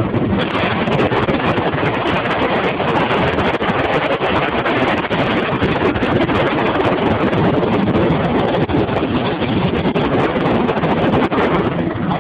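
Helicopter in flight heard from inside its cabin: a steady, loud wash of rotor and engine noise mixed with wind buffeting the microphone.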